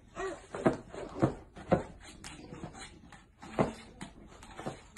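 A series of about five sharp thumps and knocks, irregularly spaced, with lighter ticks between, from a baby and a bulldog bumping and patting against a leather couch.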